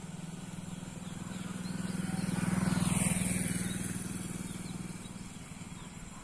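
A motor vehicle's engine passing by, growing louder to a peak about halfway through and then fading away.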